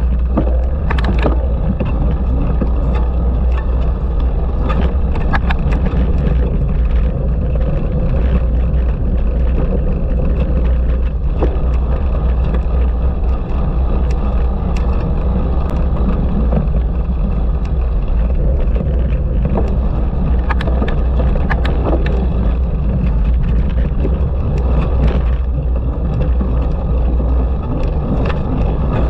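A cyclocross bike being ridden hard over rough ground: wind rushing and buffeting on the microphone, with tyre noise and frequent sharp rattles and knocks from bumps.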